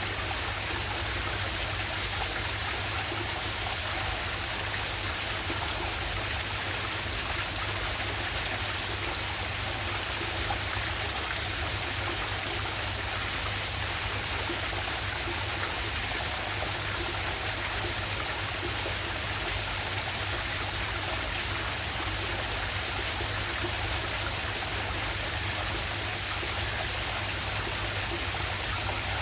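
Waterfall on a river pouring steadily: an even, unbroken rush of water with a low rumble underneath.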